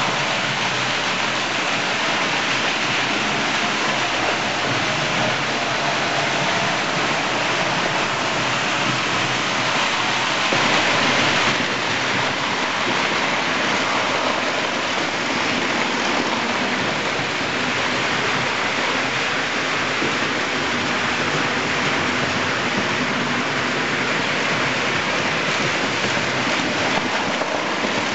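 Several electric model trains running together on the layout's track, a steady whirring and rolling noise of motors and wheels on the rails. It swells briefly about eleven seconds in as a train passes close by.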